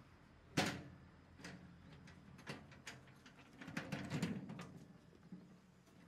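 Wheelbarrow being handled on bare ground: a sharp clunk about half a second in as it is brought down from tipping, a few single knocks, then a run of rattling knocks about four seconds in as it is wheeled along.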